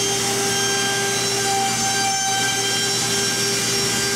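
Workshop machinery running steadily: a constant drone with a low hum and several thin high whines held at one pitch.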